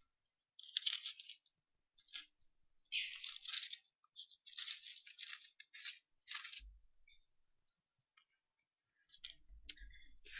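Faint rustling of thin paper in a string of short bursts as Bible pages are turned, with a soft low bump about two-thirds of the way in.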